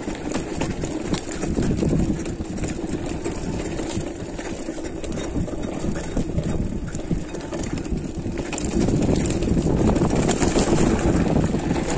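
Mountain bike rolling down a rough dirt trail: a continuous rumbling rattle of tyres and bike over bumpy ground, growing louder about two seconds in and again in the last few seconds.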